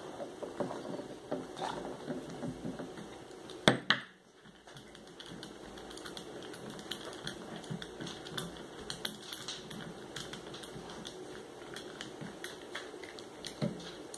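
Small metallic clicks and ticks as a Phillips screwdriver backs out the small screws of a baitcasting reel's side plate and the screws and parts are handled, with one sharp, louder click a little under four seconds in.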